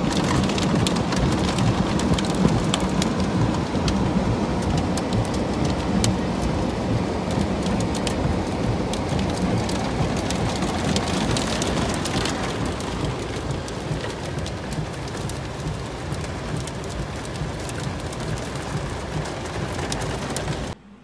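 Heavy hailstorm: a dense, steady downpour of hail and rain, with many sharp ticks of hailstones striking hard surfaces, densest in the first half. The sound cuts off suddenly near the end.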